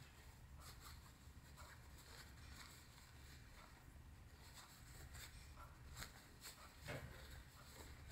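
Faint rustling and soft scratching of cotton fabric being handled as a cord is fed through a sewn fabric tube, a few small scrapes standing out, over a low room hum.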